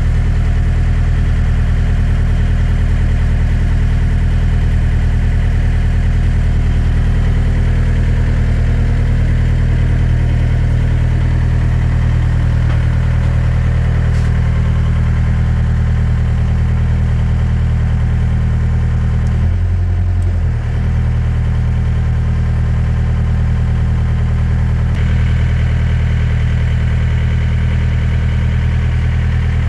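Excavator's diesel engine running at a steady idle, with a brief change in tone about twenty seconds in.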